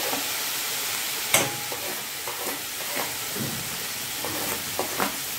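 Mixed vegetables and chopped tomatoes sizzling in oil in a steel kadhai, with a steady hiss. They are being stirred: the utensil scrapes and knocks against the pan now and then, the loudest knock about a second in.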